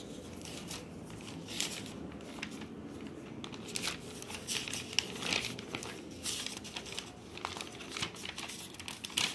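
Sheets of paper rustling and crinkling in irregular strokes as handwritten pages are turned over and shuffled.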